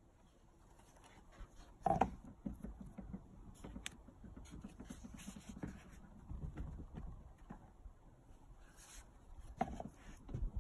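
Cane proofing baskets (bannetons) being turned over onto a board and lifted off proofed loaves: soft rustling and light taps of cane and hands, with a sharper knock about two seconds in and another near the end.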